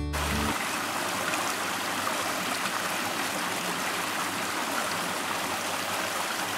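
Steady rushing of a woodland stream, an even hiss without a rhythm.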